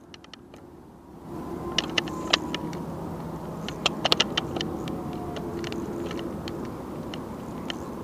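Sharp clicks and light metallic clinks from a spinning reel and its rig being handled, a quick cluster of them about four seconds in, over a steady low rumble.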